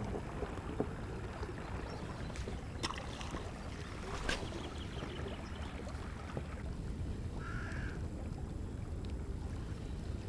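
Steady low wind and water noise around a small inflatable boat on the river, with a few light clicks in the first half and a brief higher-pitched sound about seven and a half seconds in.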